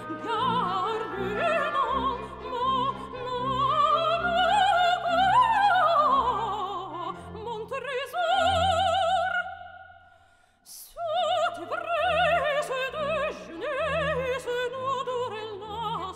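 Background music: operatic singing with orchestral accompaniment. A voice with wide vibrato climbs to a high peak about six seconds in, dies away to a brief silence about two-thirds of the way through, then comes back in.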